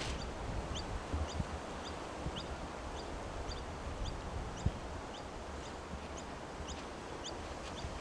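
Wind rumbling on the microphone, with a bird repeating a short, high, rising chirp about twice a second.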